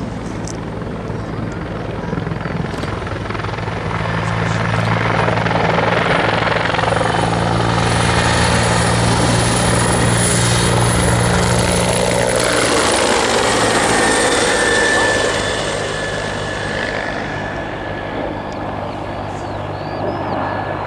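Bell 412 twin-turbine helicopter flying past. Its rotor throb and turbine whine build up, are loudest around the middle, then fade as the pitch drops after it passes.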